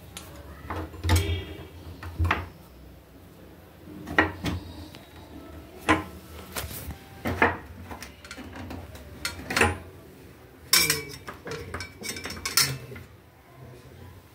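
Irregular clatter of hard kitchen objects: about a dozen sharp knocks and clinks, some with a short metallic ring, coming every second or so, with a quick cluster of them around the two-thirds mark.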